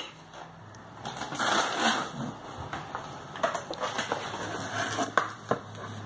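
Plastic bubble wrap crinkling and rustling as a toddler handles it and pulls it out of a cardboard box, with a few sharp crackles and taps in the second half.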